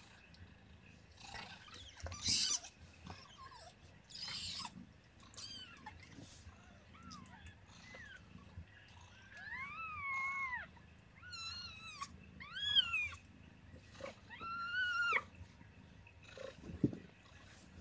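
Day-old kittens mewing: a string of short, high, arching cries, a few at a time, loudest in the middle and later part, with a couple of brief rustles of fur earlier on.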